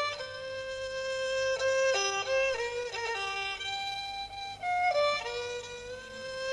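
Background music: a single fiddle-like bowed string melody moving in held, stepping notes.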